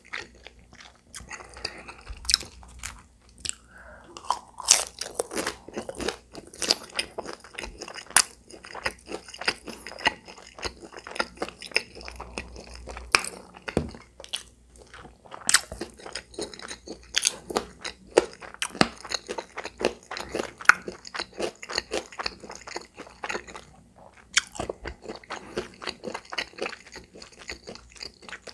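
Close-miked chewing with many sharp, rapid crunches and wet mouth sounds. Partway through, a spicy rice ball with pork cartilage is bitten into and chewed.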